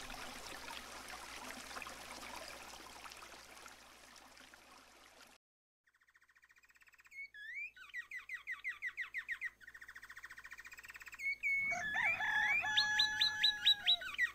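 A hiss fades out over the first five seconds. After about a second of silence, birds chirp and trill in quick repeated calls, growing louder and fuller near the end.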